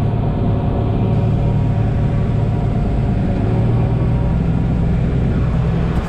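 Steady drone of farm machinery at work: a tractor's engine heard from inside its cab, with a Claas 820 forage harvester running alongside as it chops corn for silage.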